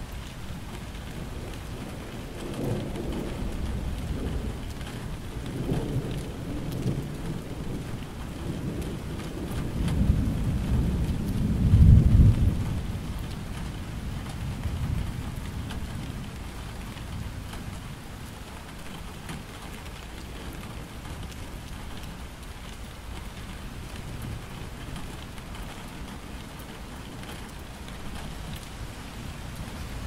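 Steady rain with a long roll of thunder. The rumble builds a few seconds in, peaks loudest about twelve seconds in, then dies away, leaving the rain alone.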